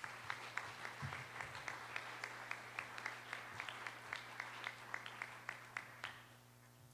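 Audience and panel applauding, with single sharp claps standing out from the mass of clapping; the applause dies away about six seconds in.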